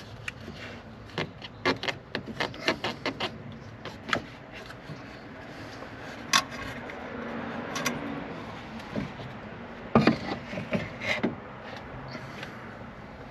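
Plastic coolant reservoir of a Ram ProMaster being worked loose and lifted out of the engine bay: a run of clicks and knocks as it rubs and bumps against hoses and brackets, with a sharp click about six seconds in and more knocks around ten seconds.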